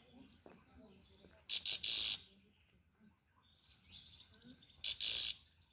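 Caged grey-headed goldfinch singing: soft, high twittering, broken twice by loud, harsh outbursts of song, about a second and a half in and again near the end.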